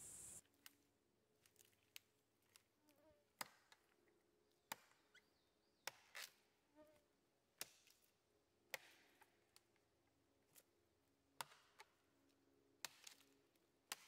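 A large chopping knife (tesak) striking dead conifer branches: about a dozen sharp, short chops at uneven intervals of roughly one to one and a half seconds.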